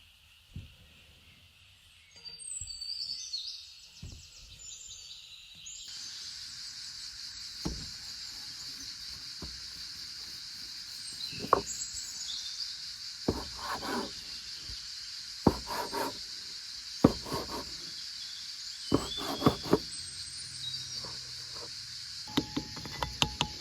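Outdoor ambience: insects buzzing steadily with bird chirps, broken by a series of sharp knocks, then a quick run of ticks near the end.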